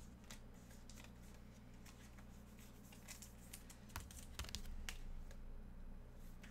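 Faint, irregular clicks of typing on a computer keyboard, over a low steady electrical hum.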